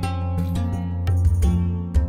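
Background music: a run of plucked notes over a steady low tone.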